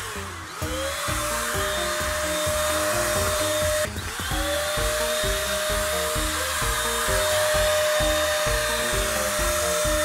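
Handheld electric spray gun's motor whining steadily as it sprays a fine mist of cleaning solution. The whine drops in pitch and spins back up about half a second in and again about four seconds in. Background music with a plodding beat plays underneath.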